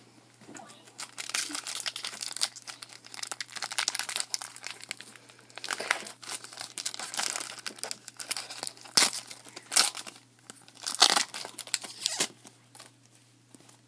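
Plastic wrapper of a 2014 Topps Opening Day baseball card pack crinkling and tearing as it is ripped open, with a few sharper, louder crackles in the second half.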